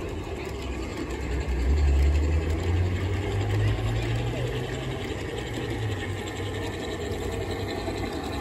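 Garden-railway model freight train's box cars rolling past on the track, a steady rumble and clatter of the wheels on the rails.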